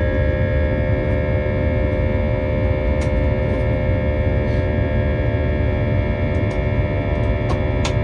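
Airbus A320-232's IAE V2500 jet engines heard from inside the cabin during the climb after takeoff: a steady low rumble with a layered engine whine. A few light clicks sound about three seconds in and again near the end.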